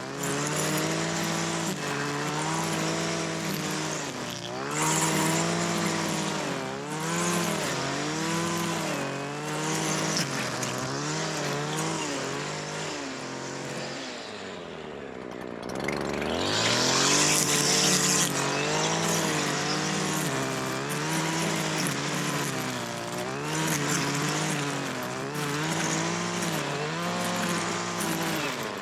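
Small petrol engine revving up and down over and over. Its pitch drops low about halfway through, then it revs back up with a brief louder, hissier burst.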